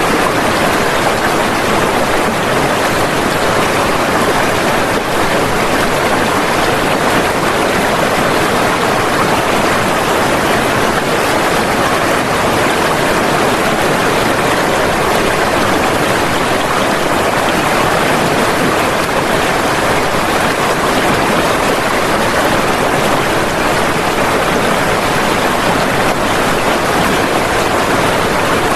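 Floodwater rushing in a steady, loud, unbroken torrent.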